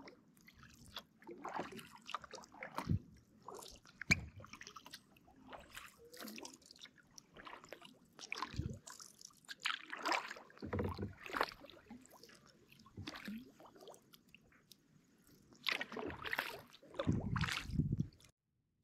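Kayak paddle strokes on calm water: the blades dip and splash in an uneven rhythm, one every second or two, with water dripping and sloshing in between. The sound cuts off abruptly near the end.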